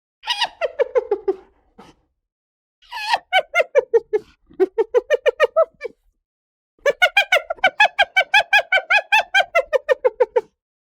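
Hyena giggling: three bouts of rapid staccato calls, about five or six a second, each bout trailing down in pitch. The second and third bouts are the longest.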